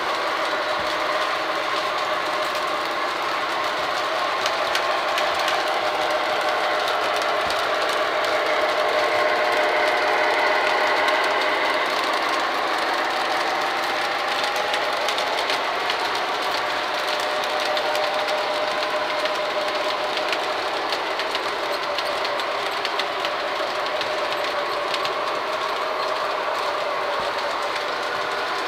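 O gauge model trains running on three-rail track: a steady motor and gear whine that slowly wavers in pitch, over a constant fine clicking of wheels on the rails.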